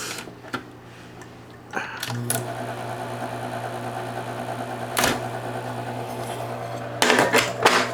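SCM Coronet Super 12 electric typewriter switched on: a click about two seconds in, then its belt-driven motor runs with a steady hum. There is a sharp click partway through and a short burst of clatter near the end.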